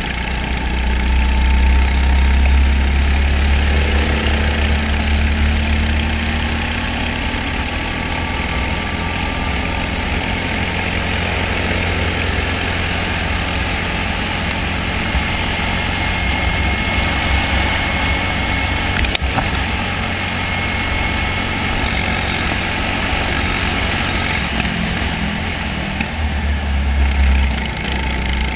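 Go-kart engine running at racing speed, heard from onboard the kart with a deep rumble of wind and vibration on the camera. The rumble swells early on and again near the end.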